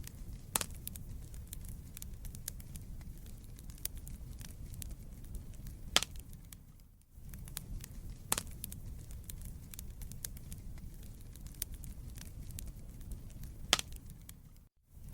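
Wood fire burning in a fireplace: a steady low rumble of the flames with scattered crackles and a few louder pops of burning logs. The sound briefly fades out and back in about seven seconds in.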